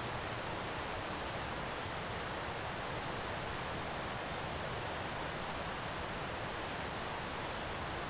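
Steady, even outdoor rushing noise with no calls or distinct events.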